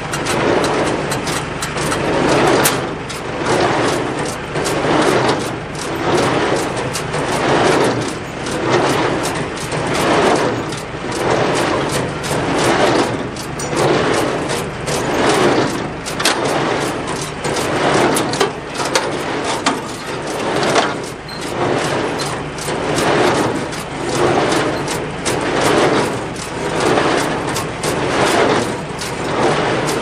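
New Holland small square baler running off the tractor's PTO, its plunger and knotter mechanism clanking in a steady rhythm about once a second over the tractor's running engine.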